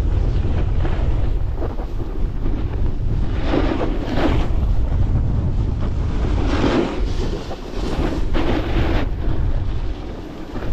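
Heavy wind buffeting the microphone of a camera moving fast downhill, with edges scraping and hissing across packed snow in turns, loudest in three longer scrapes around the middle and toward the end.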